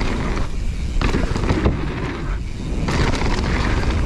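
Wind buffeting an action camera's microphone and mountain bike tyres rolling on packed dirt while riding a jump line, a loud, steady low rumble. The higher hiss thins out twice, briefly.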